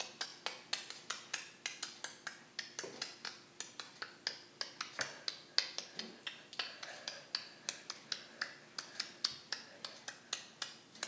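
A quiet, steady run of sharp clicks, about four or five a second, keeping an even beat.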